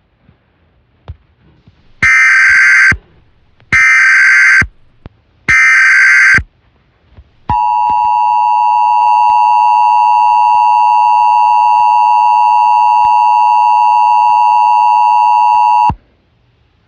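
Emergency Alert System tones opening a flood watch alert. Three short bursts of the SAME digital header, each just under a second, are followed by the two-tone attention signal, held steady for about eight and a half seconds before it stops abruptly.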